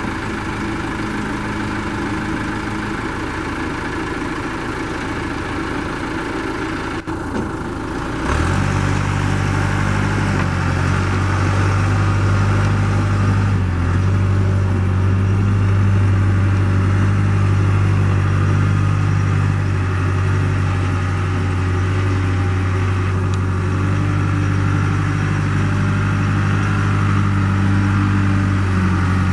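John Deere 310C loader backhoe's four-cylinder diesel engine running steadily, then picking up speed and getting louder about eight seconds in and holding there.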